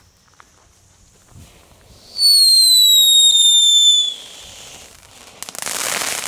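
Category 1 'Knetterking' crackling fountain firework going off. It gives a loud whistle for about two seconds, falling slightly in pitch, then a softer hiss. About five seconds in comes a burst of dense crackling.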